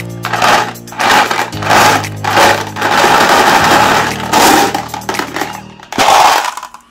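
Electric meat grinder motor running with a steady hum while glass marbles crunch and crack in it. The sound drops away near the end.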